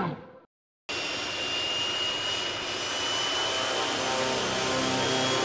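A music jingle fades out, and after a brief silence jet aircraft engine noise starts abruptly about a second in: a steady rushing sound with a thin high whine.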